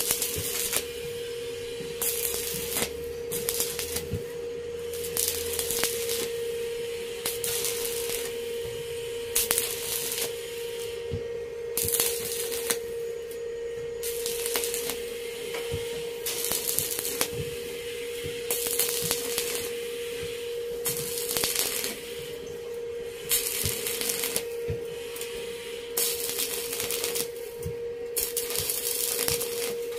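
Shielded metal arc (stick) welding with an E6013 rod at 90 amps on a Daiden inverter welder, laying a continuous bead on thin steel tubing. The arc crackles steadily, swelling and easing every second or two with sharp pops, over a steady hum.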